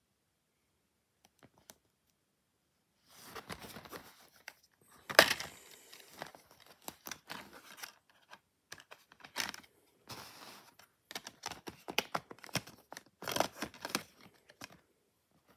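A clear plastic DVD case being handled and opened, with crinkling, rustling plastic and sharp clicks starting about three seconds in; one loud snap comes about two seconds later.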